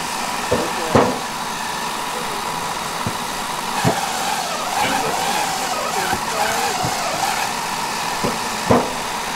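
Honeybees buzzing in numbers around the hive boxes, their pitch wavering up and down as they fly close, with a few sharp knocks of wooden comb frames against the stainless steel frame box: about a second in, near four seconds and near the end.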